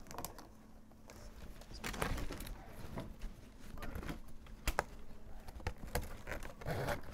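Plastic baling straps being worked and pushed through a woven plastic-strap basket: rustling and scraping in short stretches, with a few sharp clicks and ticks in between.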